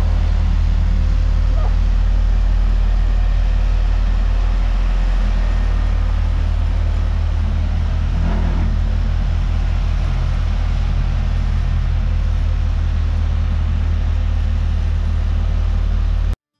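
Engine of a ride-on single-drum roller compactor running steadily as it drives over a gravel pad, a constant deep rumble. It cuts off abruptly near the end.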